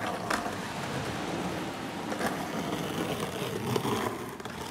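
Steady outdoor background noise, an even rushing hiss with a few faint knocks.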